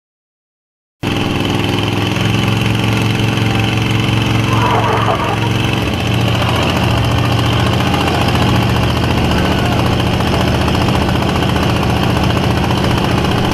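About a second of silence, then loud pickup truck engines running steadily at an even pitch. The trucks are hooked together for a truck tug of war.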